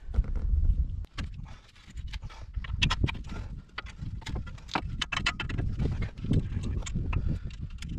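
Irregular metal clicks and clinks of steel bolts and hand tools being handled and fitted at a car's front strut bracket and steering knuckle, over a low rumble that is loudest in the first second.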